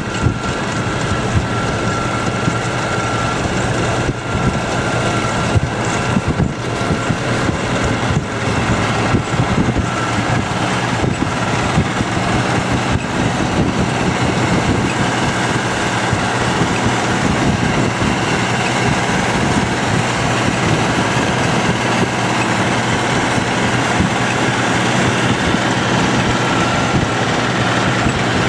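John Deere 7810 tractor's six-cylinder diesel running steadily under load, pulling a Strautmann Giga Vitesse silage wagon as its pickup and rotor lift grass from the swath. A faint high whine comes and goes over the engine.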